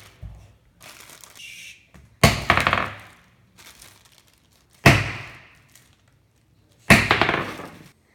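A jawbreaker sealed in a plastic bag slammed three times against a wooden cutting board to smash it open. Each blow is a sharp crack that dies away over about a second, and the bag rustles softly before the first.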